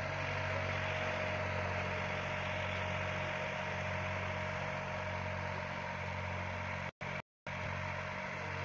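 Diesel tractor engine running steadily with a low, even drone. The sound cuts out briefly twice about seven seconds in.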